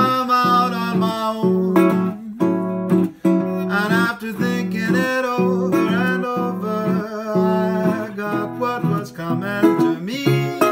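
National Duolian steel-bodied resonator guitar played fingerstyle, a rhythmic stride pattern of bass notes and chords, with a man singing a melody over it.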